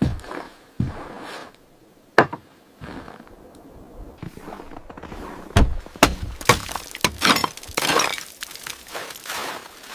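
A few sharp knocks and cracks, then a quick run of crunching, scraping strokes about six to eight seconds in.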